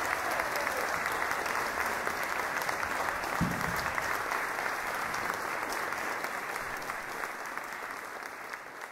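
Audience applauding at the end of a brass band piece, the clapping steady and then slowly fading away. A brief low thump comes about three and a half seconds in.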